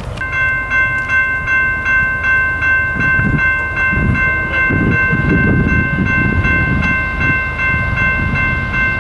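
Norfolk Southern diesel freight locomotive's multi-chime air horn sounding one long steady blast, over the low rumble of the approaching train.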